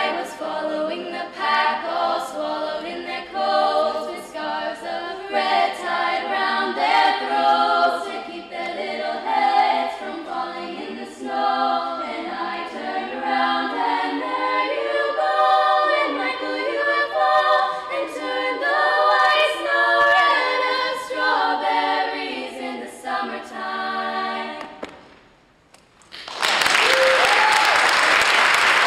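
A girls' school choir singing a Christmas song a cappella. Near the end the song finishes and the audience breaks into loud applause.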